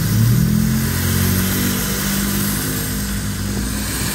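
A running motor humming steadily, its pitch lifting briefly about a quarter second in and then slowly sagging.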